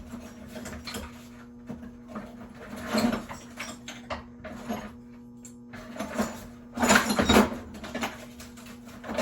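Small pieces of scrap brass and stainless steel being handled and knocked together: scattered clinks and knocks, with a quick cluster of clanks about seven seconds in. A steady low hum runs underneath.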